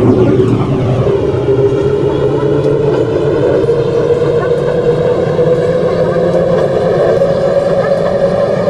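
MTR M-Train electric multiple unit running, its traction motors whining with a tone that rises slowly in pitch over a steady low rumble as the train picks up speed.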